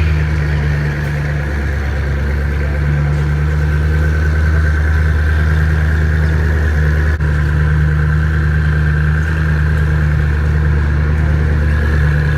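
Hypercar engine idling steadily with a deep, even hum that holds the same pitch, no revving.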